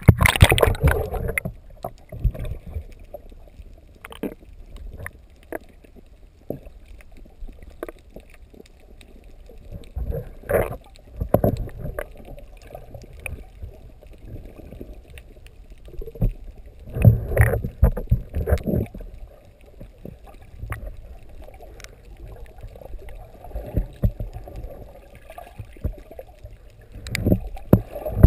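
Muffled water noise heard by a camera held underwater: low sloshing and rumbling, with louder surges every several seconds. The loudest comes right at the start, as the camera dips through the surface.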